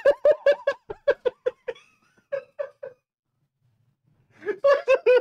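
A man laughing hard in quick, short bursts that die away after about three seconds; after a brief pause the laughing starts again near the end.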